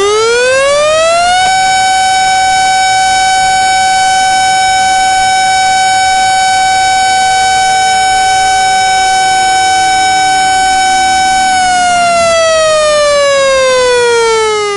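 Tornado warning siren winding up to a steady wail about a second and a half in, holding it, then winding down near the end. A second, lower siren tone holds alongside it and glides down from about halfway through.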